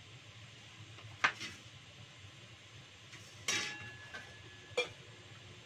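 Metal kitchenware (bowls, plates and a spoon) clinking and knocking together in a few separate strikes; the loudest, about three and a half seconds in, rings on briefly.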